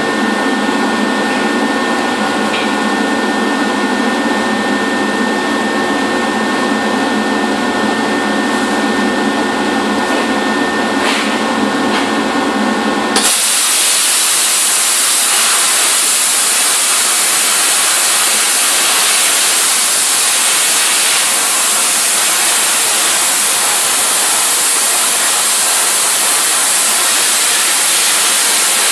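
Steady machine drone with several steady tones. About 13 s in it switches abruptly to the loud, even hiss of an Everlast Power Plasma 50 plasma torch cutting steel plate, its consumables worn.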